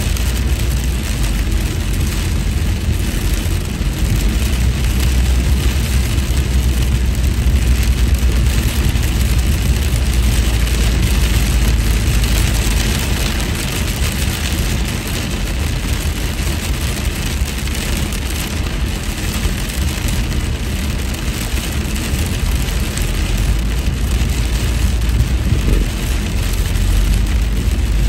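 Steady road noise of a car driving on a wet freeway in heavy rain, heard from inside the cabin: a deep rumble under a hiss of wet tyres and rain on the windshield.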